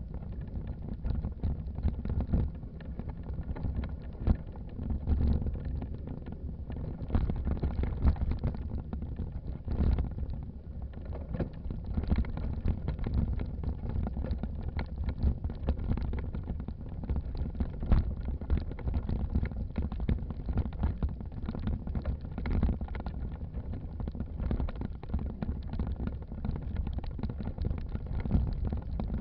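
Low, uneven rumble of wind buffeting the microphone of a camera on the move, with knocks and jostling from the camera mount, no clear single event.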